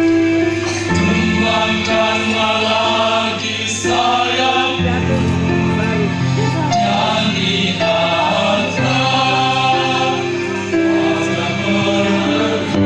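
Male choir singing in several parts, holding long chords that change together every second or so.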